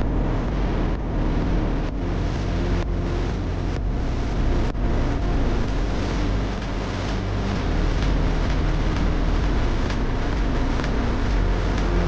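Steady rumble and rush of a vehicle driving along an unsealed dirt road: tyre and road noise with wind on the microphone.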